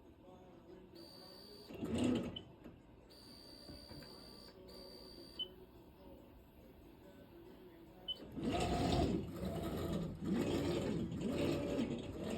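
Stepper motors of a home-built CNC plasma table driving the gantry through a test G-code job: a high steady whine in short moves separated by pauses, then a few louder bursts of noise near the end.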